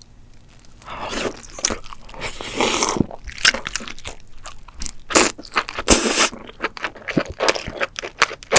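Close-miked king crab eating: the shell cracks and crunches in a dense run of sharp snaps, with a few longer noisy bursts in between.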